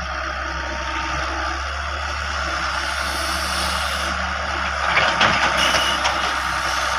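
Heavy diesel machinery running steadily, with a cluster of louder clanks and bangs about five seconds in.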